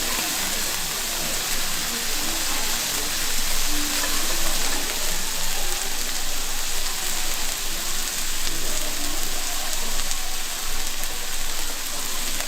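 Thick beef skirt steak frying, a steady sizzle with fine crackling throughout.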